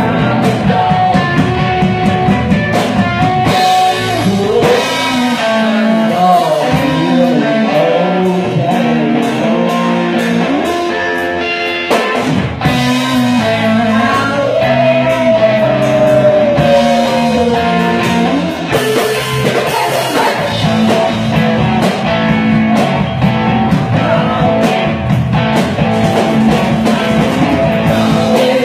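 Live rock band playing, with electric guitars over a drum kit and a lead singer. About halfway through, one long note bends up and then slides down.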